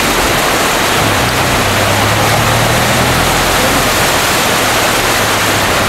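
Muddy floodwater, swollen by excess water released from a dam, rushing past in a loud, steady rush of noise.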